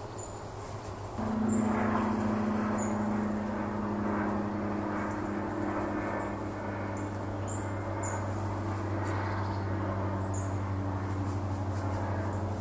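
A steady low engine drone comes in about a second in and holds, with short high chirps now and then.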